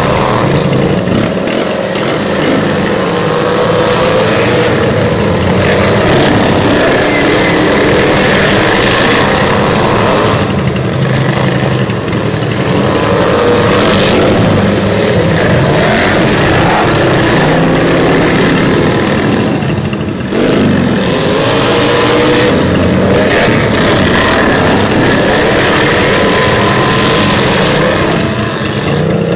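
Engines of several modified racing lawn tractors running hard and revving, their pitches rising and falling as they race around the track.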